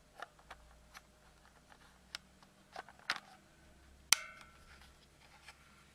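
Plastic latch clasp on a trail camera's housing being handled and fastened: a scatter of small clicks, then one sharp snap about four seconds in.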